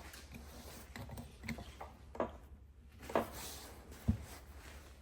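A few short clicks and knocks as the metal parts of a Zenith series 63 updraft carburetor are handled, the strongest and deepest knock near the end, over a faint steady low hum.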